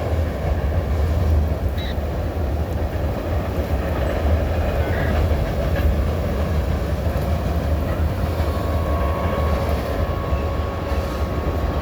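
Train rolling past: a steady rumble of wheels on the rails. A faint steady high tone joins about three-quarters of the way through.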